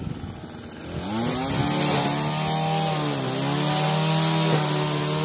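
String trimmer engine revving up about a second in and running at high speed as it trims the lawn edges, easing off briefly about three seconds in before picking back up.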